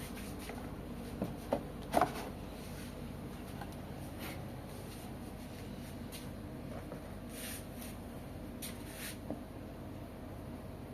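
LG washing machine with a faint steady hum, three sharp clicks between one and two seconds in, then several soft swishing rustles.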